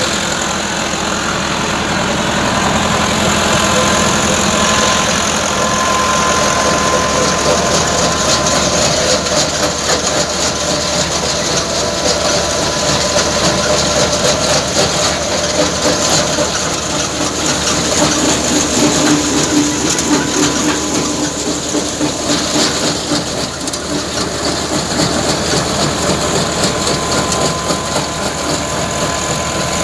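Massey Ferguson 385 tractor's four-cylinder diesel engine running steadily under load, driving a PTO-powered threshing machine as crop is fed into it.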